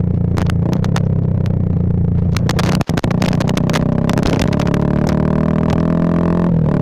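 Bajaj Pulsar 220F's single-cylinder engine through a Race Concepts full aftermarket exhaust, heard while riding. The engine note climbs steadily from about four seconds in, then drops sharply near the end. The audio cuts out briefly about three seconds in, and crackles from a faulty microphone run throughout.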